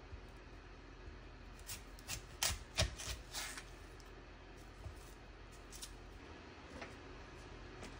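Chef's knife cutting through a whole onion on a wooden cutting board: crisp crunches and crackles of the papery skin and layers, with the blade knocking on the board. The loudest cluster comes about two to three and a half seconds in, followed by a few faint taps.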